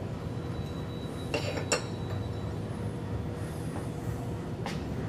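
Steel roller-clutch parts (cage, rollers, bearing races) clinking against each other and the shaft as they are handled: a quick pair of ringing clinks about a second and a half in and a lighter tick near the end, over a steady low hum.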